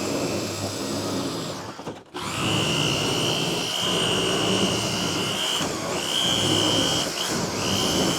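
Electric shears running with a steady high whine as they cut through a clear polycarbonate panel. The motor stops briefly about two seconds in, then runs on with a few short dips in pitch near the end.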